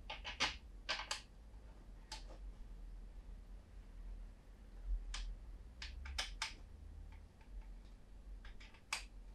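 Hard plastic parts of a 3D-printed fan case clicking and knocking as they are fitted together by hand, with a long machine screw slid into place. Scattered sharp clicks come in small clusters in the first second, around the middle, and once near the end.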